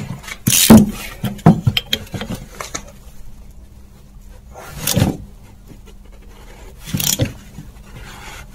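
Metal clicks and scrapes of a socket ratchet worked on a brake caliper, short and sharp at first, then two louder scraping knocks about five and seven seconds in, over a faint steady low hum; the work is on the caliper's snapped-off bleeder screw.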